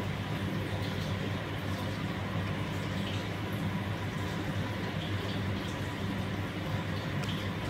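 A steady low machine hum over an even hiss.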